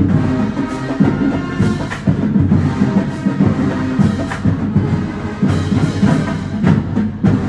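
Music with prominent drums and percussion, keeping a steady beat.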